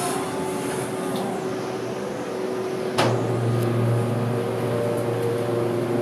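Montgomery KONE hydraulic elevator running. About three seconds in there is a sharp clunk as the car starts to rise, then a steady low hum with several steady tones from the hydraulic pump motor driving the car up.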